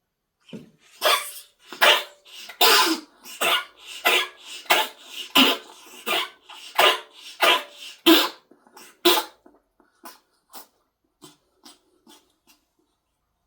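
A pet coughing in a long fit: about a dozen harsh coughs, roughly one and a half a second, then a few faint, short ones trailing off near the end.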